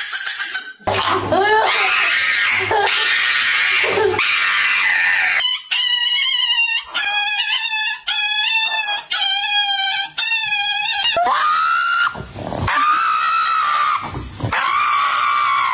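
Dogs screaming: a rough stretch of cries, then a run of six short, high cries about a second apart, then longer wailing cries.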